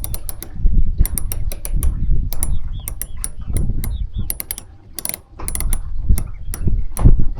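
Metallic ratchet clicking in quick runs of several clicks, each click with a bright high ring, over a steady low rumble of wind on the microphone.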